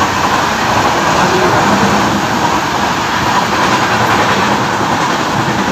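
Coaches of the Nellai Superfast Express running past a station platform at about 45–50 km/h: a loud, steady rolling rush of wheels on rail and air around the moving train.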